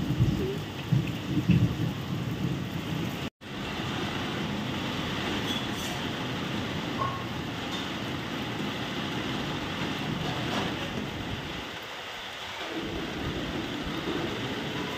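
Steady hiss of heavy rain falling. In the first three seconds there is louder, uneven low rumbling, then the sound drops out for a moment.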